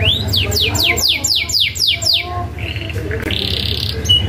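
Canary singing: a fast run of about nine falling whistled notes, roughly four a second, then a buzzy trill about three seconds in. A low hum runs underneath.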